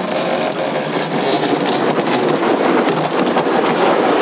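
Squall wind and breaking seas rushing past a sailing yacht, a loud steady rush with frequent short irregular knocks and rattles, heard from under the canvas cockpit enclosure.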